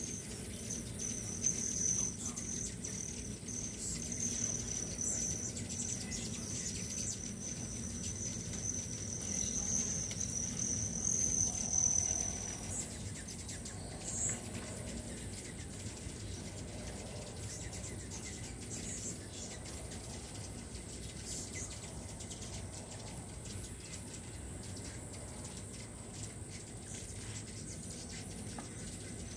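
Many hummingbirds swarming a feeder: the hum of their wings, with scattered high chip calls. Over them runs a steady high-pitched buzz that stops about twelve seconds in.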